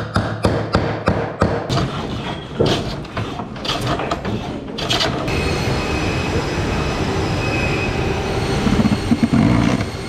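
A hammer striking nails into a wooden frame, about three blows a second; then, about five seconds in, a cordless drill runs steadily, boring into a chipboard panel.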